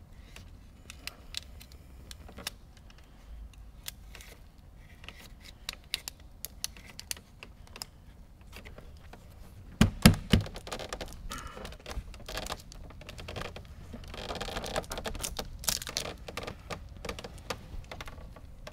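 Fingers pressing and sliding wet window-tint film against car door glass and its rubber gasket: a run of small, irregular clicks and crinkles. About ten seconds in come two loud, low knocks, and a few seconds later a stretch of rubbing.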